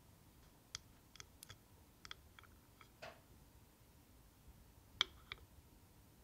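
Light clicks of a tiny metal measuring spoon against small cups while powdered gelatin is scooped, then a sharper knock and a second smaller one near the end as a miniature metal saucepan is set down on the wooden stand.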